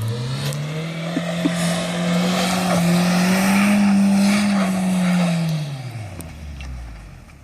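Honda CR-V's engine revving up, held at high revs for about three seconds, then dropping back down near the end.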